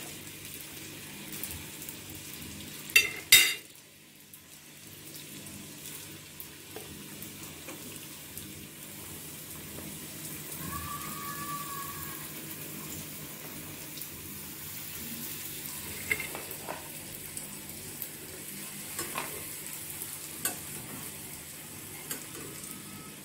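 Small dough puris deep-frying and puffing in hot oil: a steady sizzle. A few sharp metal clinks come from utensil against the pan, two loud ones about three seconds in.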